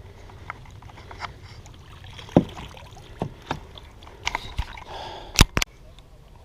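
Scattered knocks and clicks on a kayak, with water sloshing underneath; the loudest is a close pair of sharp knocks near the end.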